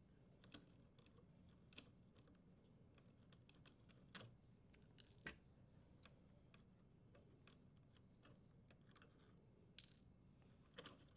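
Near silence with a handful of faint, sharp clicks and taps, two a little louder around the middle: plastic wire nuts being untwisted and the power wires handled in a sheet-metal junction box.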